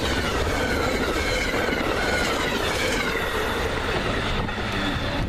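Amtrak Pennsylvanian passenger train passing at speed: a steady loud rush and rail clatter from the cars, with faint tones sliding slowly down in pitch.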